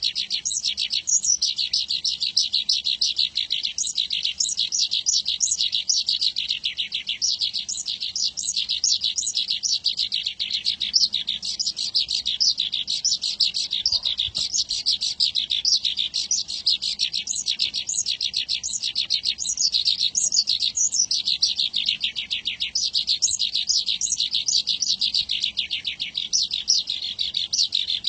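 Javan bush lark (branjangan) singing a long, unbroken song of rapid high chirps, many short downward-sliding notes a second.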